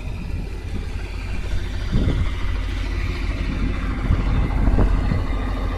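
A steady low rumble with a few soft knocks, the background noise of a roadside.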